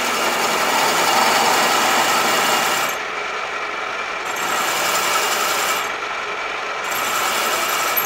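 Pillar drill running with its twist drill spinning free: a steady motor and gear whine with a hiss over it. The hiss falls away twice, for about a second each time.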